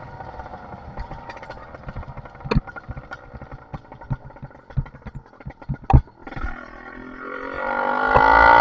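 Small two-stroke engine with a 52 mm single-ring piston and a Master Blaster muffler, heard from the moving vehicle: it eases off with a falling pitch amid scattered clicks and knocks, then about six and a half seconds in revs up hard, rising in pitch and getting louder.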